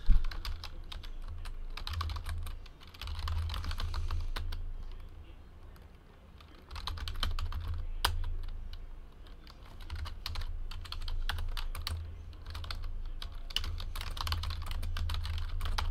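Typing on a computer keyboard: irregular runs of key clicks with short pauses between them, over a low steady hum.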